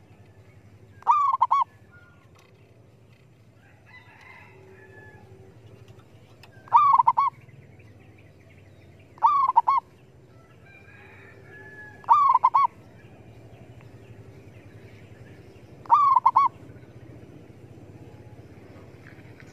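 Caged decoy zebra dove (merbok) cooing: five short bursts of rapid staccato coos, each about half a second long, spaced a few seconds apart.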